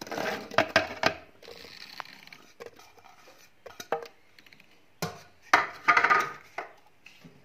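Chopped fruit, apple and banana pieces, tipped from a plastic container into a plastic blender jar: clattering and knocking of the pieces and the container against the jar. One burst comes in the first second, a few light ticks follow, and a second louder burst comes about five seconds in.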